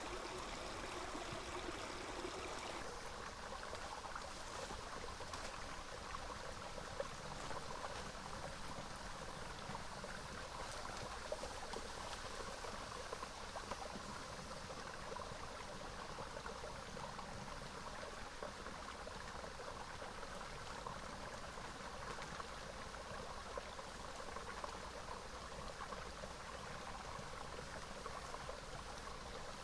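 Small river flowing steadily over stones, with a few faint clicks.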